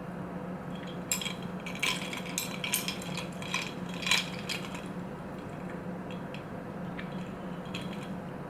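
A run of short, light clicks and clinks of hard objects, bunched in the first half, over a steady low hum.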